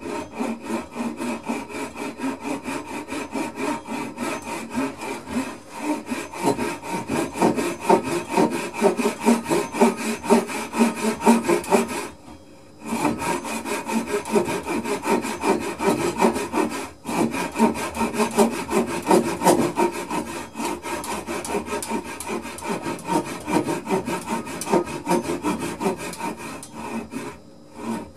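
Japanese pull saw cutting through a wooden block held in a vise, with fast, even back-and-forth strokes. The sawing stops briefly partway through, then carries on.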